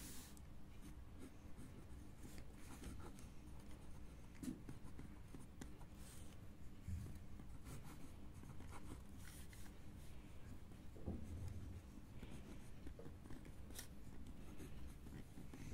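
Pen writing on a lined notebook page: faint, intermittent scratching of the tip across the paper, with a steady low hum beneath.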